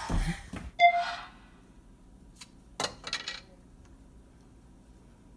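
A single bright, bell-like ding about a second in, ringing briefly as it fades, followed a couple of seconds later by a few light clicks and clinks.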